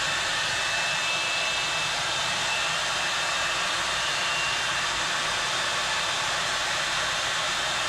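Electric air pump running steadily, inflating an AirSkirts inflatable RV skirt tube, with a faint high whine in the first half.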